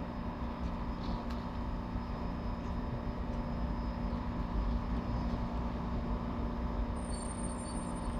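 Passenger train standing at the platform, idling with a steady low rumble and hum.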